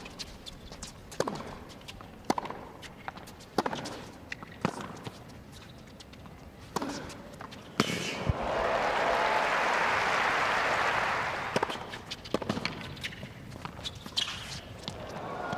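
Tennis rally: sharp racket-on-ball hits about every second or so, ending about eight seconds in, followed by crowd applause for about three seconds. A few more racket hits come near the end as the next point starts.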